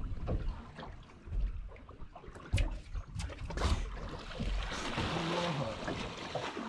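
Wind and water noise around a small boat at sea, with a few sharp knocks around the middle and a faint short pitched sound near the end.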